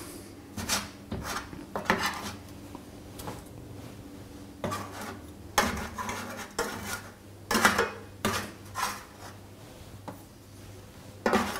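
A metal spoon scraping and clinking against a metal baking tray as baked sweet-potato broas are pried loose and lifted out, in a run of irregular, separate scrapes and knocks.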